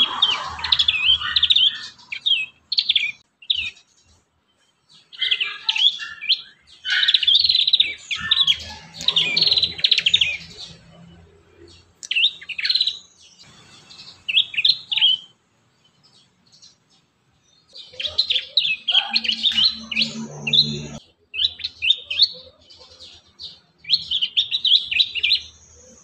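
Prinias (prenjak) in a cage singing in rapid bursts of sharp, high chirps and trills, broken by short pauses of a second or more.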